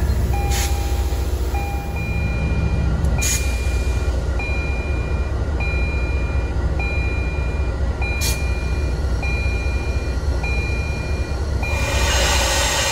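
MBTA HSP46 diesel locomotive running with a steady low engine rumble, while a high warning beep repeats about once every three quarters of a second. There are a few sharp clanks, and a burst of hissing noise comes near the end.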